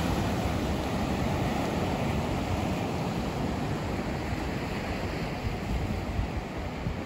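Ocean surf breaking and washing up onto a sandy, rocky beach, a steady rush of waves, with wind rumbling on the microphone.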